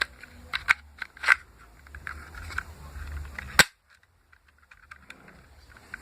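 Homemade PVC toy pistol: a few sharp mechanical clicks of handling, then one loud sharp crack of it firing about three and a half seconds in.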